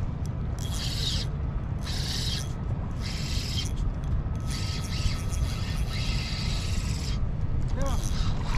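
Spinning reel being cranked in spells, its gears and spool whirring during a lure retrieve, with short pauses between turns.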